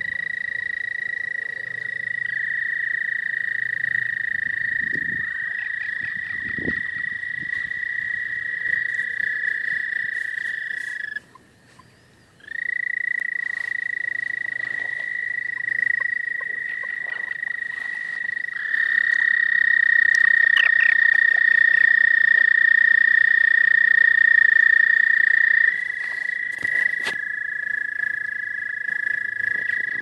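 Toads at a pond trilling in their spring breeding chorus: several long, steady high trills at slightly different pitches overlap, each held for many seconds. The calling stops for about a second near the middle, then starts again and is louder for a while in the second half.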